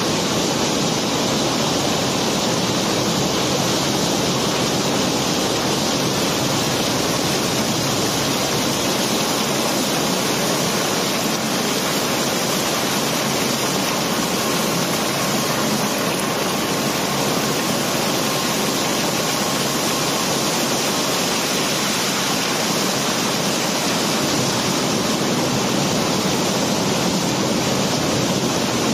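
Cobblestones sliding and pouring steadily out through the discharge opening in a barge's hold, stone tumbling on stone in one continuous, unbroken rush.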